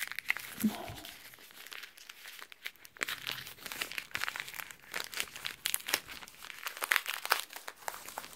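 Yellow wrapping paper crinkling and tearing as a small package is unwrapped by hand: a run of irregular crackles, quieter for a while about one to three seconds in.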